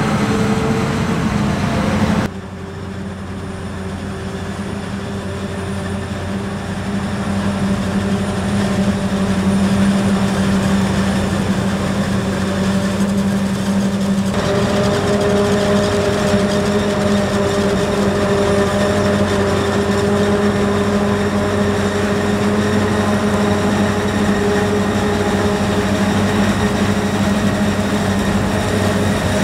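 Heavy farm machinery running steadily at work: a forage harvester chopping maize with tractors alongside. The sound drops suddenly about two seconds in, then builds back up over several seconds.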